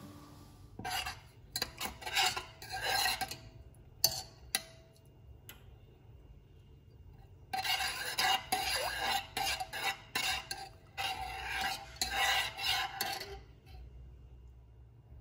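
Metal spoon stirring loose tea leaves into milk in a stainless steel milk pan, scraping and clinking against the pan in quick rasping strokes, in two spells, the second longer. A single sharp clink about four seconds in.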